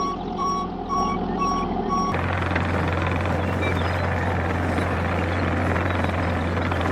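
A heavy vehicle's reversing alarm beeping about twice a second over its running engine, cutting off about two seconds in, after which the steady engine noise of a heavy vehicle runs on.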